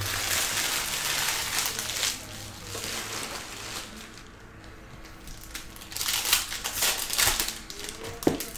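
Foil wrapper of a Panini Prizm basketball hobby pack crinkling as it is torn open and handled. About six seconds in, this gives way to a run of quick clicks and snaps from the stack of trading cards being flicked through.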